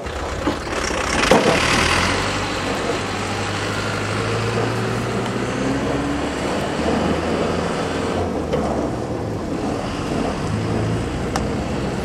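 Snowplow truck with a salt spreader, its engine running with a steady low hum as it drives away.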